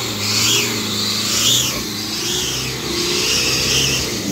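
Nissan Patrol four-wheel drive's engine revving under load as its tyres churn in bog mud, the vehicle stuck and trying to drive out. The revs and the spray noise rise and fall over and over.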